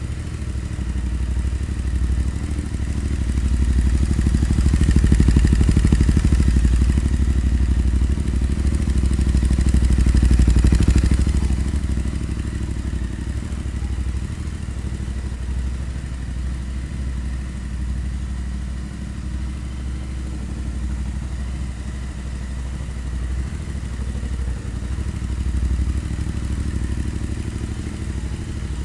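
Royal Enfield Interceptor 650's parallel-twin engine idling through Powerage short slip-on exhausts with the baffles in, not very loud. It swells for several seconds in the first half, then settles to a steady idle. The bike is left idling so the ECU can relearn after the exhaust and K&N air filter change.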